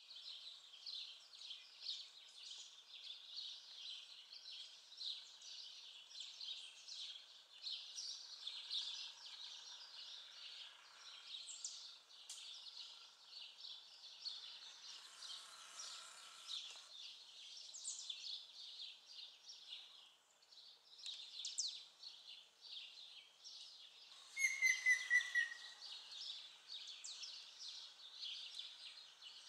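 Many small birds chirping and twittering steadily and faintly. Near the end one bird gives a louder call of about six quick, slightly falling notes.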